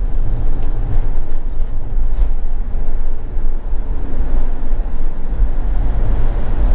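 Motorhome driving along a road: steady low engine and tyre noise.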